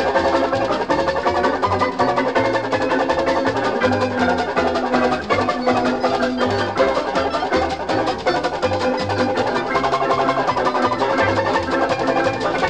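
Instrumental keyboard music from a 1961 LP, played over a bass line that steps from note to note in a steady beat, with drums.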